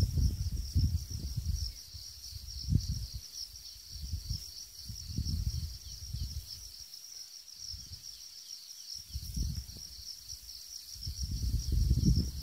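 Steady high-pitched chorus of chirping insects, with gusts of wind buffeting the microphone, heaviest at the start and again near the end.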